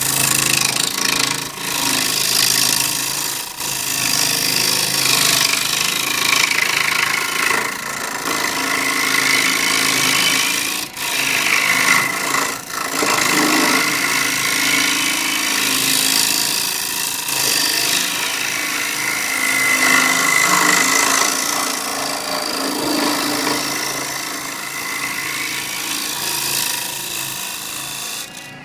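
A gouge cutting the outside of a spinning cherry bowl blank on a wood lathe: a loud, continuous hissing scrape of wood being sheared into shavings. The cut breaks off briefly twice near the middle as the tool lifts from the wood.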